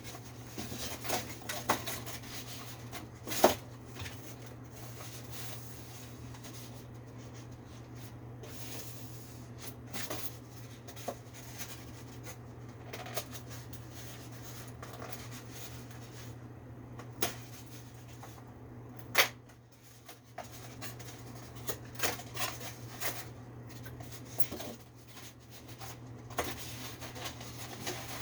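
Hands working on a window air conditioner's coil and housing: scattered clicks, knocks and rubbing of parts, with a sharp knock about three seconds in and another near the end of the second third, over a steady low hum.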